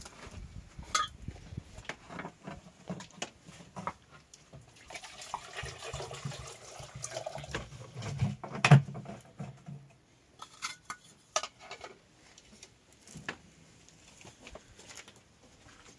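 Plastic water jerrycans being handled: scattered knocks, clicks and scrapes, with liquid moving inside them for a few seconds in the middle. One loud knock comes near the middle, and it is sparser towards the end.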